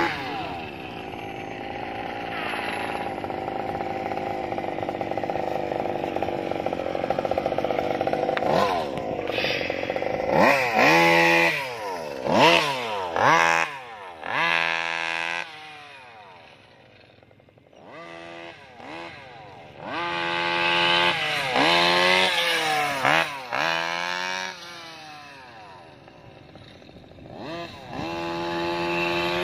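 Small 32cc two-stroke petrol engine of a Rovan 1/5-scale RC car running at a steady speed for the first several seconds, then revving up and down again and again as the car is driven. The engine drops back to a low idle twice before revving up again near the end.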